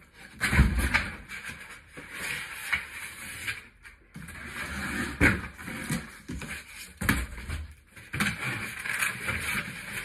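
Large cardboard shipping box being lifted, tipped upside down and shaken: cardboard scraping and rustling, with a few dull thumps.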